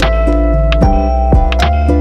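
Background music with a heavy bass line, sustained synth notes and a steady percussive beat.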